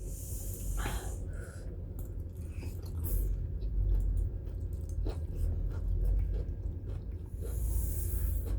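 Chewing and eating sounds from a meal of vegetable chow mein, with scattered light clicks and two short hissy bursts, one near the start and one near the end.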